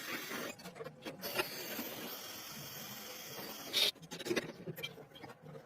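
A steady hissing spray that cuts off suddenly about four seconds in, followed by a few light clicks and knocks.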